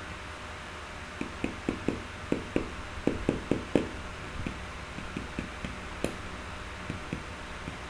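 Computer keyboard keys tapped in an irregular run of about seventeen strokes, quick at first and then thinning out, over a steady hiss.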